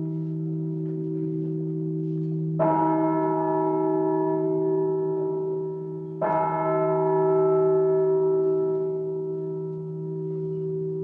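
A bell tolled slowly: two strokes about three and a half seconds apart, each ringing on in a steady hum of many overtones that is still sounding when the next stroke comes.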